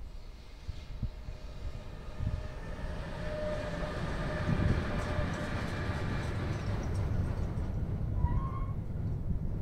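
Electric freight locomotive hauling a loaded car-carrier train past at very slow speed. A steady whine rises as the locomotive goes by about three to four seconds in, then the loaded car-transporter wagons rumble over the rails. A short rising squeak comes near the end.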